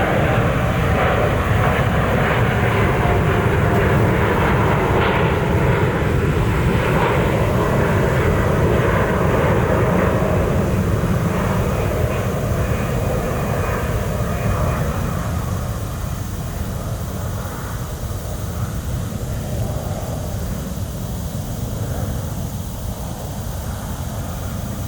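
Jet airliner passing overhead: a loud engine rumble with a faint whine that fades away over the second half.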